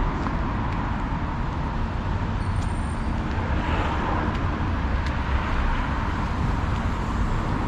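Steady road traffic noise: an even hum of vehicles with a low rumble underneath.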